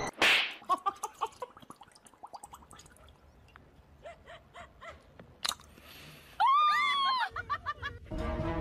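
A husky vocalizing: a run of short yips that fade, then about six and a half seconds in a loud, drawn-out, arching howl-like whine. A sudden burst of noise comes at the very start, and music comes in near the end.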